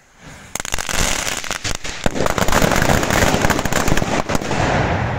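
A string of firecrackers going off in a dense, rapid crackle of bangs, starting about half a second in and running on without a break.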